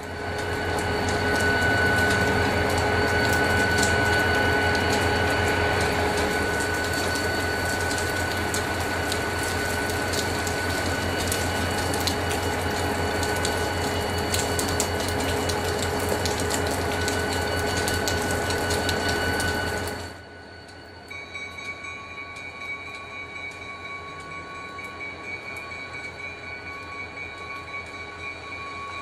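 Diesel freight locomotive running close by: a loud, steady engine drone with a low throb. About two-thirds through the sound drops suddenly to a quieter, more distant train approaching a grade crossing, with the crossing bell ringing in a steady rhythm.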